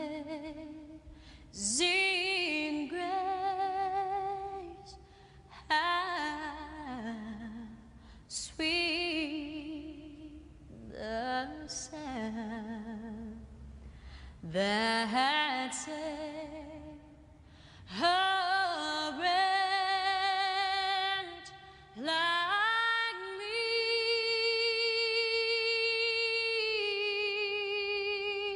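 A woman singing a slow solo song with no audible accompaniment, in phrases broken by short pauses, with vibrato and long held notes; the last note is held for about five seconds near the end.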